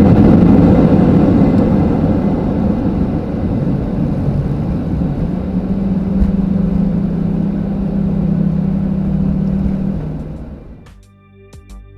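Jet engine and airflow noise inside a Boeing 737-800 cabin, loud at first and easing off into a steady low drone. It fades out near the end, where music comes in.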